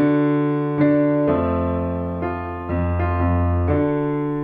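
Piano chords played on an electronic keyboard, a new chord struck about every second over held low bass notes, with no singing.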